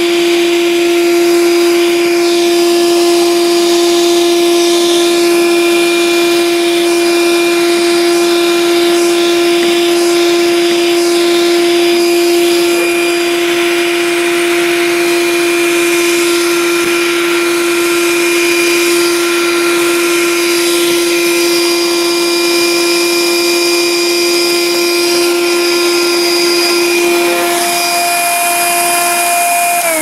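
Black & Decker PD1200AV 12-volt car vacuum cleaner running steadily at full suction, a motor whine over rushing air, with its bristle brush head working over the ribbed plastic of the centre console.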